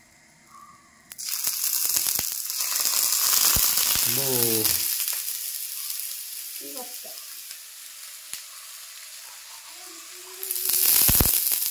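Sugar-sweetened milk going onto bread frying in hot butter in a non-stick pan, bursting into a loud sizzle about a second in that slowly dies down, then flaring up loudly again near the end.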